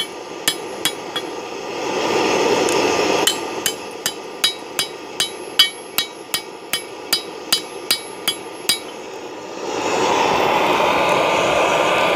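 Hand hammer striking a hot steel sword blade to forge its bevel, sharp ringing blows about three a second. The blows stop with a short break about 2 seconds in, then stop again near the end, when a steady rushing noise takes over, fitting the propane forge burner.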